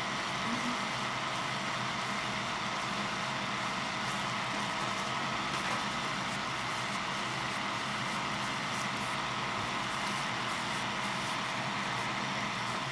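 Electric fan running with a steady, even hum.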